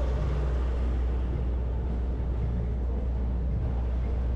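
Steady low rumble of city street traffic, an even background noise with no single event standing out.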